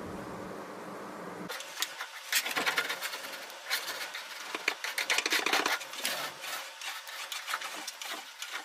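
Hand scraper dragging paint-stripper-softened varnish and paint off a wooden surface in a run of irregular scratchy strokes, which start about a second and a half in after a steady low hum.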